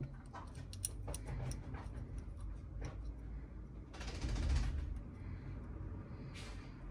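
Hands fitting a brass air-assist nozzle onto a laser module's head make small scattered clicks and ticks of metal parts. There is a louder rustling stretch about four seconds in and a short hiss near the end.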